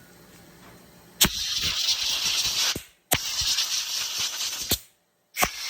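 Compressed-air blow gun blowing out a disassembled ER32 collet and nut: three sharp-starting blasts of hissing air, each about a second and a half long, the first about a second in and the last starting near the end.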